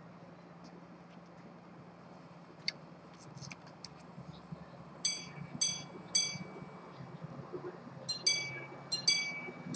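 Antique minute repeater pocket watch striking the time on its gongs: a few light clicks from the mechanism, then about five seconds in three slow, ringing hour strikes, followed near the end by a quicker run of quarter strikes.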